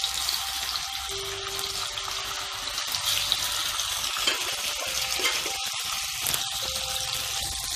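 Marinated Indian mackerel pieces shallow-frying in coconut oil in a nonstick pan: a steady sizzle with a few small pops.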